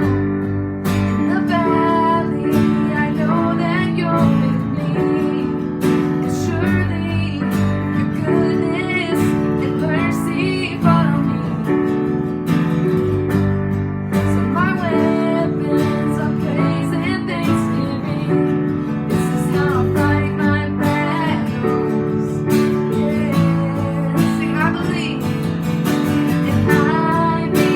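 Music led by strummed and plucked acoustic guitar, with a melody line that bends and slides in pitch over steady chords.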